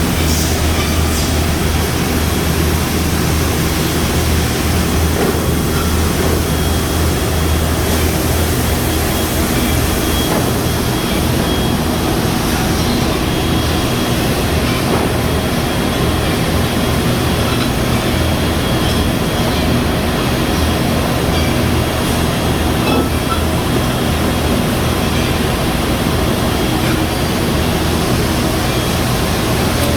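Factory machinery running: a loud, steady mechanical noise with a low hum underneath and a faint high whine.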